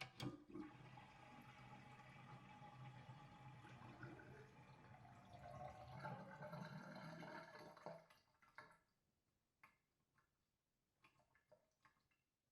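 Water running or pouring steadily, which stops about eight seconds in and trails off into a few scattered drips.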